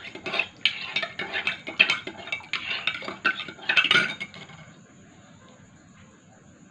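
Metal spoon stirring liquid in a ceramic mug, with quick repeated clinks against the inside of the cup. The stirring stops about four seconds in.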